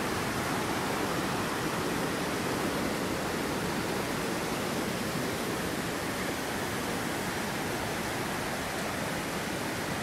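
Stream rushing over boulders in white-water rapids: a steady, even sound of running water.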